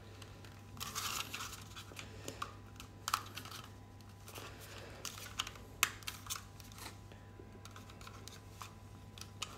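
Scattered plastic clicks and short scrapes of a universal travel adapter being handled, its spring-loaded plug sliders pushed in and out.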